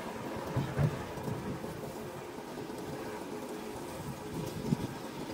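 Steady low rumble of outdoor site noise with wind on the microphone, and a couple of brief dull knocks about a second in and near the end.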